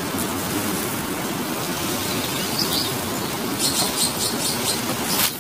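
Steady outdoor background noise of a city park, with a bird chirping faintly now and then. A few short crackles come near the end, and a sharp click just before it stops.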